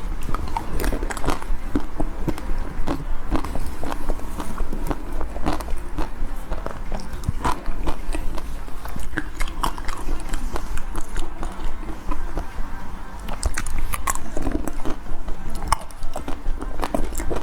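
Close-miked biting and chewing of chocolate-shelled ice cream bars: a continuous run of irregular crisp crunches and crackles as the hard coating breaks.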